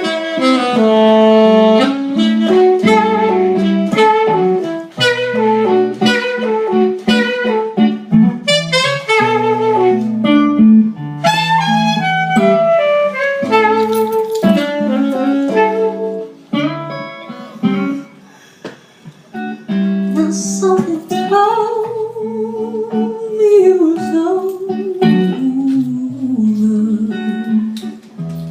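Instrumental break of a slow soul ballad: the band plays on with a lead instrument carrying the melody and no words sung, easing off briefly a little past the middle.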